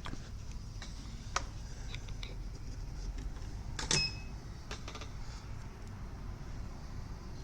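A few light clicks and one sharper clack about four seconds in, with a short ring after it, over a steady low hum.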